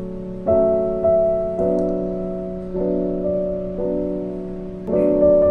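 Piano music: slow chords, a new one struck about once a second and left to ring and fade.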